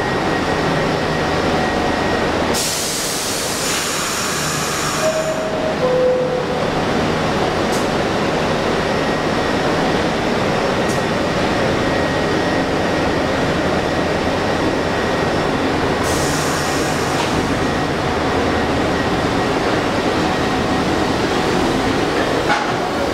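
R62A subway train at the platform: a burst of air hiss, then a two-note descending door-closing chime about five seconds in, after which the train pulls out and runs past with a steady loud rumble and rattle. A second, fainter air hiss comes partway through.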